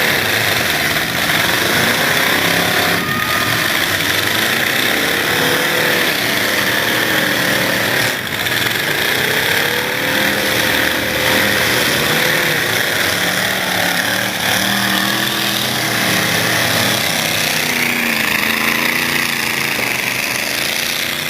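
Engines of several demolition-derby trucks running loudly together, revving up and down in pitch.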